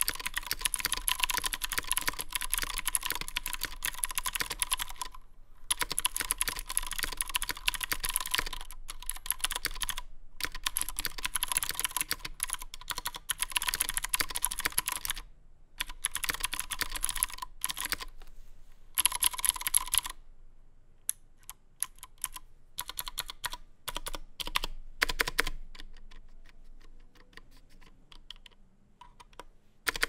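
Typing on an aluminium-cased iKBC MF108 mechanical keyboard with clicky Cherry MX Blue switches: fast runs of keystrokes broken by short pauses. About two thirds of the way through, the typing turns slow and scattered, with quieter single keystrokes.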